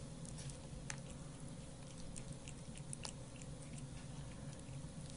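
A cat chewing wet food: scattered small, wet clicks and smacks at an uneven pace.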